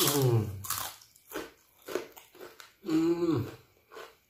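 Crunching bites and chewing of a crisp rempeyek (fried peanut cracker), in a run of short crackly crunches. Two short voiced hums break in, one at the start and one about three seconds in.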